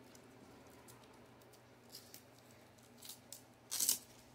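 Velcro straps of a sports sandal being handled and fastened: a few faint ticks, then a short rasp of hook-and-loop near the end.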